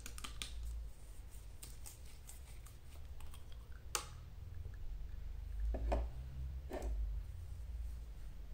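Light clicks and taps from handling small paint pots and a brush, with one sharp click about four seconds in and two duller knocks later on.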